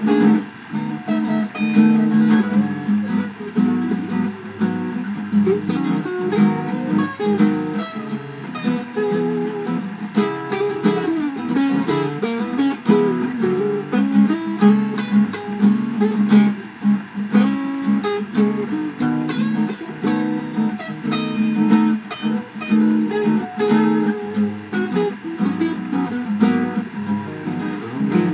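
Background music: an upbeat instrumental led by strummed and plucked guitar.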